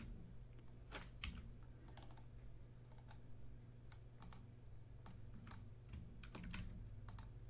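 Faint, scattered keystrokes on a computer keyboard, a dozen or so short clicks at uneven intervals, over a low steady hum.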